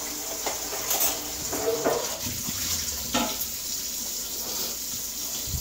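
Pot of chicken and dumplings simmering, a steady watery bubbling hiss with a few faint clicks.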